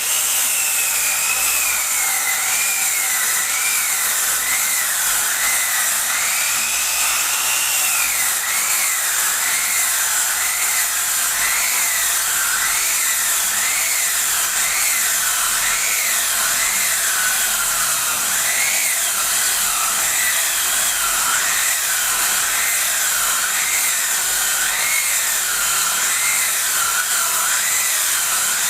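Circular-saw machine ripping wooden boards lengthwise: a steady loud whine of the spinning blade, its pitch wavering up and down about once a second as it cuts.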